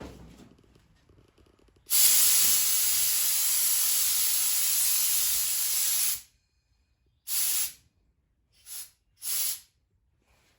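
Compressed-air blow gun blowing out the knock sensor holes in an LS engine block. It gives one long blast of about four seconds, then three short bursts.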